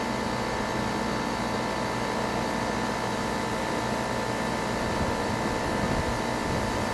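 A 5-ton R-22 air-conditioning condensing unit running: a steady hum of compressor and condenser fan with a few constant tones.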